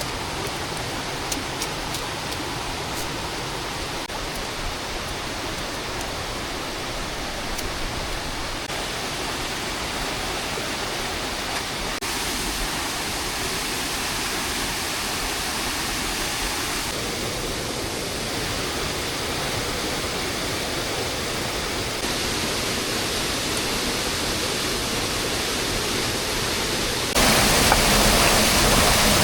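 Steady rushing of water, typical of heavy rain in a forest. It grows louder in steps and jumps up sharply near the end, with a few faint ticks in the first couple of seconds.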